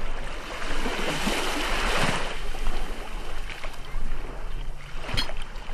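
Wind buffeting the microphone in gusts, over gentle waves lapping at the shore.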